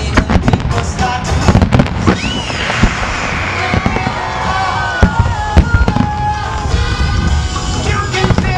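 Aerial firework shells bursting in quick succession, a rapid run of sharp bangs.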